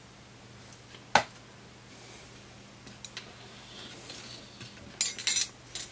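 Hands handling a circuit board, a desoldering-braid spool and a soldering iron on a workbench: a single sharp click about a second in, a few faint ticks, then a short burst of crisp clattering and rattling near the end. A faint steady low hum lies underneath.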